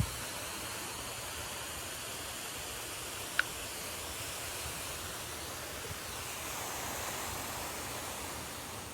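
Steady hiss of water spraying from a pressure washer gun, with one short, sharp chirp about three and a half seconds in.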